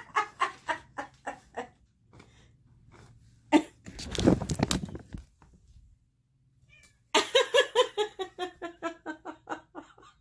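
A woman laughing in a fit: two runs of rapid, high-pitched ha-ha bursts, with a short burst of noise between them about four seconds in.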